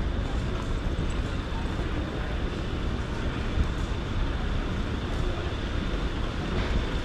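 Steady city-street noise with a low rumble, typical of motor traffic on nearby streets.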